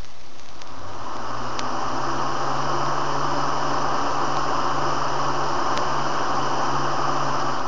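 1999 Lasko box fan running on its high setting: a steady rush of air with a low motor hum, building up about a second in.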